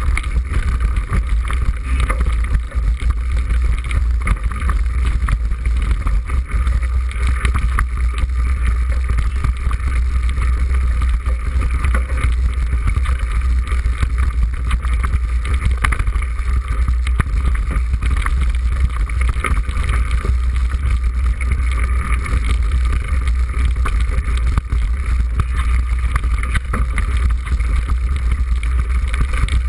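Wind buffeting the microphone as a mountain bike descends a rough stony track, a steady heavy rumble, with constant rattling and small knocks from the bike and tyres over the rocks.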